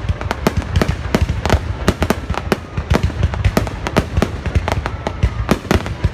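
Fireworks going off in a dense, continuous barrage: many sharp bangs and cracks a second with no break, and faint whistles.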